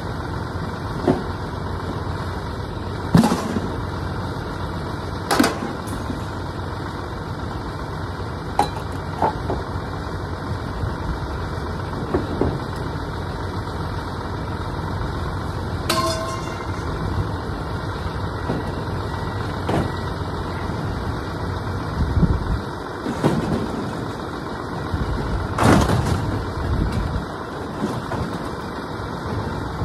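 An engine idling steadily, with scattered sharp clanks and knocks of scrap metal being handled and dropped, the loudest about a quarter of the way in and near the end.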